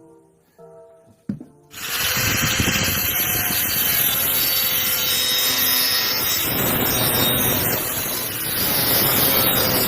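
Angle grinder cutting steel square tube: a steady grinding rasp over the motor's even whine, starting suddenly about two seconds in after a few seconds of soft guitar music.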